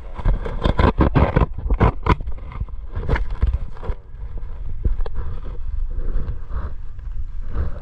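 An inflatable tube riding over the water: water splashing and the tube slapping the surface, with a quick run of sharp slaps in the first two seconds, over a steady low rumble of wind buffeting the microphone.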